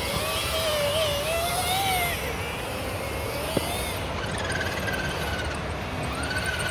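Electric motor and gears of an RC scale rock crawler whining, the pitch wavering up and down as the throttle is worked, over a steady noisy background. One sharp knock about three and a half seconds in.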